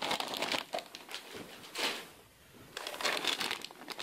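Clear plastic bag crinkling as a plastic model-kit sprue packed inside it is handled and shifted, in several bursts: one at the start, one around two seconds in, and a longer stretch near the end.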